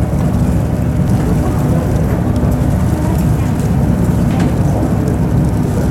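Matsudai Kisen ferry under way, its engines giving a steady low rumble with some rushing noise over it.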